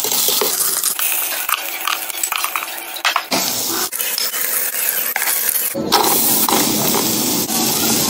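Beef short ribs searing in hot oil in an electric pressure cooker's metal inner pot, sizzling steadily, with metal tongs clicking against the pot as the pieces are turned. After a cut about six seconds in, the sizzling is louder, with chopped onions in the pot.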